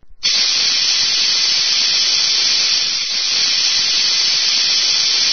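A steady, loud hiss of noise, strongest in the upper range, starting just after the start and cutting off abruptly at the end, used as an intro sound effect.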